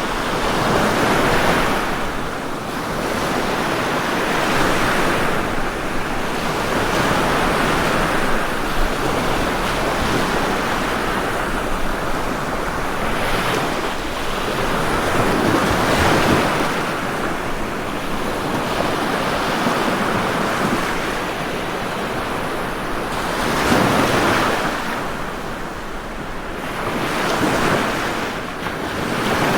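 Ocean waves breaking and washing on the shore, a steady rush of surf that swells and eases every few seconds.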